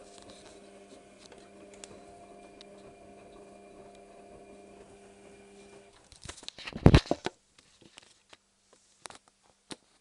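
Washing machine drum motor humming steadily while it tumbles the wash, then stopping about six seconds in. Right after it comes a short cluster of loud knocks and rustles, then a few scattered clicks.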